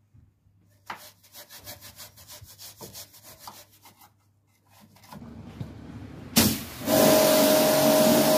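Hand brush scrubbing the inside of a car's wheel arch in quick, uneven strokes. About seven seconds in, a pressure washer starts spraying with a loud steady hiss over a motor hum.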